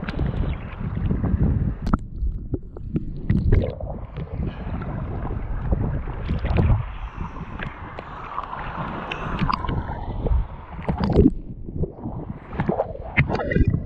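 Choppy sea water splashing and sloshing around an action camera held at the surface by a swimmer, the sound going dull twice as the camera dips under, with some wind on the microphone.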